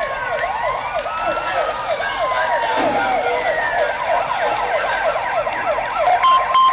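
Layered siren sound effects played over the arena's PA: several fast yelping sirens overlap with slower sirens rising and falling. A steady tone comes in near the end.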